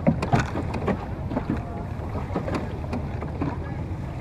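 Water slapping and splashing against the wooden hull of a rowed Venetian boat in short irregular strokes, over a steady rumble of wind on the microphone, with faint voices in the distance.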